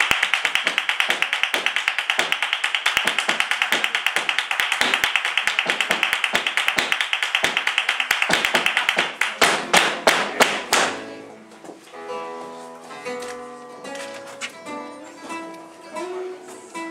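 Flamenco percussion: a fast, even run of sharp taps for about nine seconds, then a handful of loud accented strikes. After that, around 11 s in, an acoustic guitar starts picking single notes.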